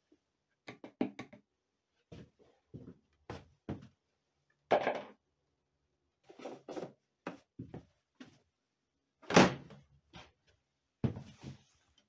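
A string of separate knocks and clunks from handling, about a dozen short ones with quiet gaps between them. The loudest come about five seconds in and about nine and a half seconds in.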